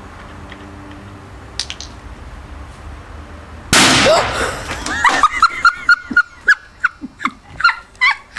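A lemonade bottle filled with rocket fuel explodes in one very loud blast nearly four seconds in, dying away over about a second. Right after comes a rapid run of sharp, high yelps, about three a second.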